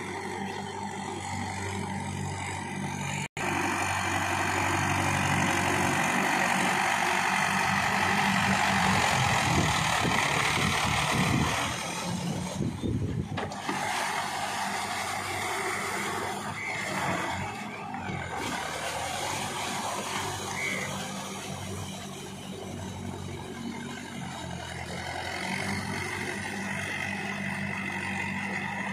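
Mahindra 595 DI tractor's diesel engine running steadily under load as it pulls a rotavator through a flooded paddy field, the rotavator churning wet mud and water. The sound drops out for an instant about three seconds in.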